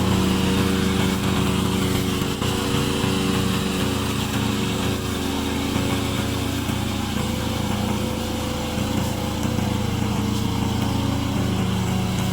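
Engine of a remote-control lawn mower running steadily.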